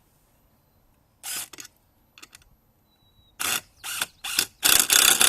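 Cordless drill driving a stainless steel screw into pre-drilled cedar in short stop-start trigger bursts. The bursts begin about a second in, come in quicker, longer pulses from about three and a half seconds, and run almost without a break near the end.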